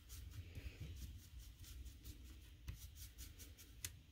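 Faint, light scratchy strokes of an inking brush rubbing ink onto the edges of paper card pieces, with a few small clicks of handling.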